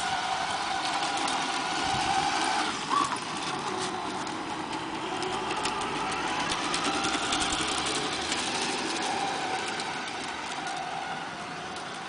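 Tamiya Knight Hauler radio-controlled truck driving over brick paving, its drive whining and shifting up and down in pitch with speed, with light clicking over the bricks. It gets fainter near the end as the truck moves away.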